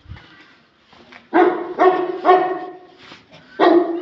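A dog barking: three barks in quick succession about a second in, then one more near the end.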